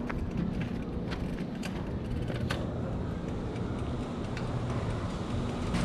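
Bicycle in motion heard from a chest-mounted camera: a steady low noise of the ride with scattered sharp clicks and rattles from the bike, about five in all.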